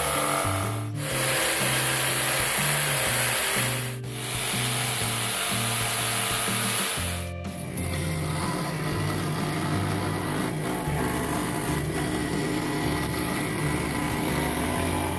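Power saws cutting thin wood: a handheld jigsaw for the first seven seconds or so, broken by short pauses, then a scroll saw's thin blade cutting a small piece. Background music with a stepping bass line plays underneath.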